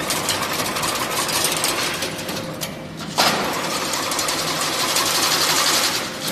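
Automatic chain link fence machine running, a fast mechanical clatter as it twists wire into diamond mesh. The clatter drops away briefly near the middle, then comes back suddenly and louder.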